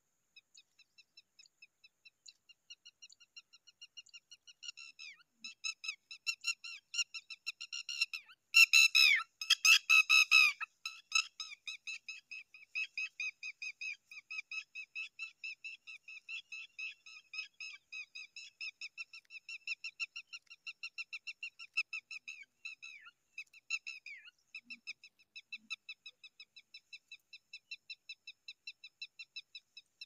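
Zitting cisticola nestlings begging for food: a continuous run of short, thin, high chirps, several a second. The chirps swell into a loud burst about nine seconds in, then carry on at a lower level.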